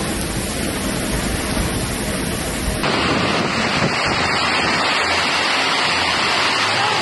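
Heavy storm rain and strong wind making a steady rush of noise. About three seconds in, it switches abruptly to a brighter, hissier rush of driving rain and wind.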